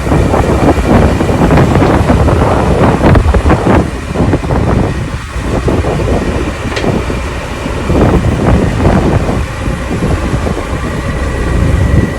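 Autonomous excavator running and digging, with irregular scraping and clattering as the bucket works the ground.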